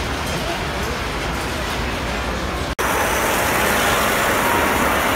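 Steady din of a crowded exhibition hall mixed with the rolling rumble of standard gauge tinplate model trains on the layout track. An abrupt cut just past halfway, after which the train noise is louder and closer.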